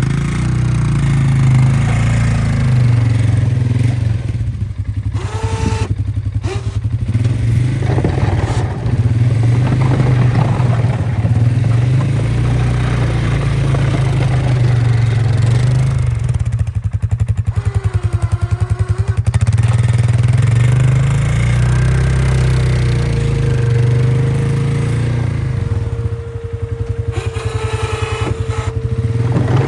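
Polaris 450 ATV's single-cylinder engine running and rising and falling in speed as it pushes snow with a front-mounted plow. A steady higher whine joins in for the last several seconds.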